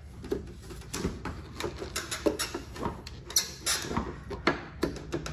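Plastic headlight housing being handled and pushed into its opening in a pickup's front end: irregular plastic clicks and knocks.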